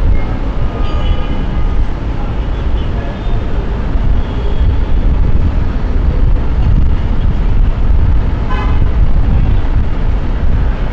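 Busy city street traffic: a steady rumble of passing vehicles, with a few short car horn toots.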